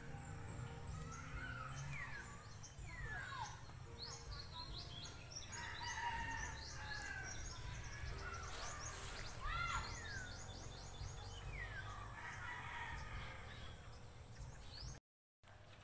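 Several wild birds calling: short downward-sweeping whistles and quick high trills, repeated throughout over a steady low rumble. The sound cuts out for a moment near the end.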